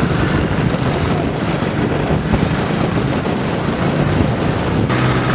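Motorcycle engine running steadily while riding, with surrounding street traffic. Near the end the sound changes abruptly.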